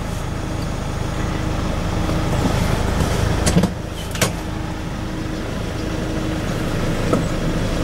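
Hyundai H-1 CRDi's common-rail diesel engine idling in Park, a steady low rumble heard from inside the cabin, with two light clicks about halfway through.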